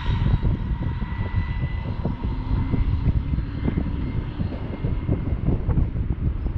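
Whine of an RC car's Hobbywing Max6 1650kv brushless motor, faint and fading slightly lower in pitch as the car runs away down the road, under a loud low rumble.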